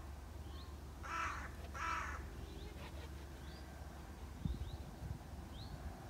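A crow caws twice, about a second in and again just before two seconds, over a small bird's short rising chirps that repeat every second or so. A steady low wind rumble runs underneath, with a few gusts buffeting the microphone about two-thirds of the way through.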